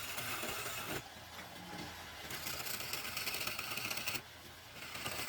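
A power tool working wood, a hissing, rapidly rattling noise that comes in three bursts with short pauses between them.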